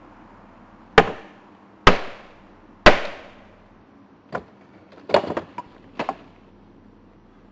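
Wooden framing struck hard during demolition: three loud blows about a second apart, then a few lighter knocks and a quick clatter of wood.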